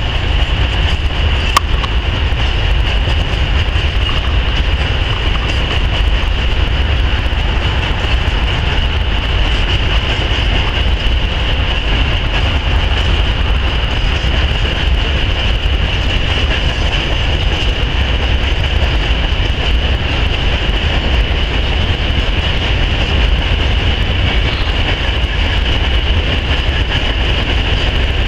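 Freight train of covered hopper wagons rolling steadily past, with a continuous rumble of wheels on the rails and a steady high-pitched ring over it.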